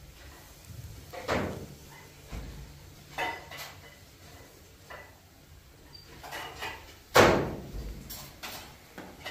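A few household knocks and bangs: three sharp thuds, the loudest about seven seconds in with a ringing fade.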